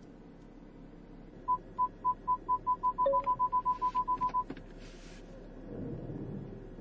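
BMW 5 Series Park Distance Control warning: a single high beep repeating faster and faster, the spacing shrinking as an obstacle gets closer, until it is nearly continuous and then stops. There is a click about halfway through.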